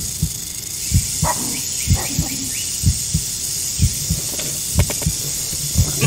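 Recorded heartbeat: low double thumps (lub-dub) about once a second, over a steady high hiss.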